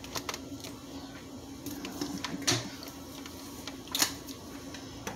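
Scattered clicks and knocks of a countertop blender being handled and set on the counter, its glass jar and plastic base knocking, the loudest knock about four seconds in. A faint steady hum runs underneath.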